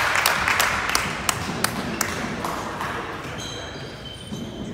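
A basketball being dribbled on a hardwood gym floor, bouncing about three times a second for the first two seconds, with sneakers squeaking on the court near the end. Crowd voices die down in the first second.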